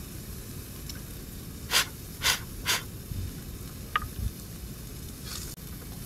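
Three short, breathy puffs of a person's breath, about half a second apart, over a steady low background noise, with a small click a little later.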